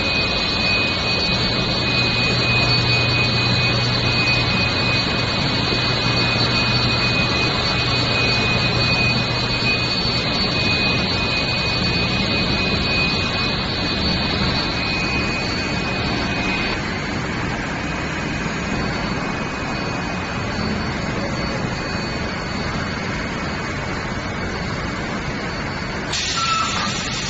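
Steel bar induction quench-and-temper furnace line running: steady industrial machinery noise with a low hum and a steady high-pitched whine. The whine stops about two-thirds of the way through while the noise carries on.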